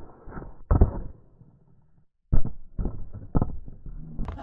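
Muffled rattling and clunking from a toy pickup truck with a small camera strapped on, rolling and bumping down thick paper wall tracks. The sound drops out for about a second in the middle, then the knocks resume.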